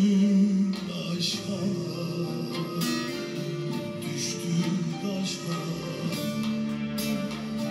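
Turkish folk song performed live: a bağlama (long-necked saz) being picked, backed by an orchestra, with a man singing held notes. Heard through a television's speakers.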